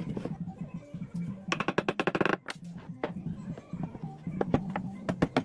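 A string of sharp knocks and clicks, with a fast rattling run of strikes about a second and a half in, over a steady low hum or background music.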